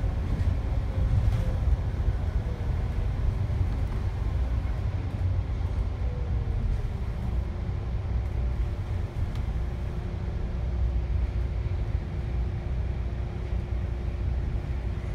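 Inside a double-decker bus on the upper deck: a steady low rumble of the bus's engine and road noise as it slows into a bus stop. A faint whine drops in pitch about seven seconds in, then holds steady.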